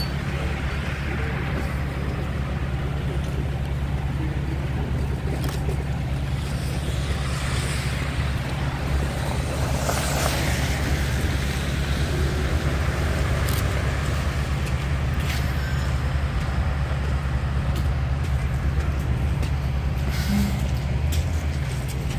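Orion VII 3G diesel bus idling at a stop, a steady low engine rumble, with a short burst of air hiss about ten seconds in.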